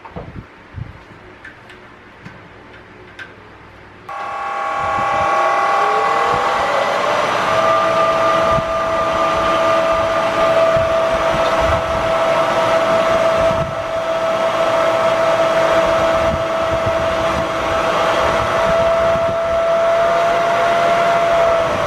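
Bridgeport milling machine motor and spindle switched on about four seconds in, a whine rising in pitch as it spins up over a few seconds, then running steadily.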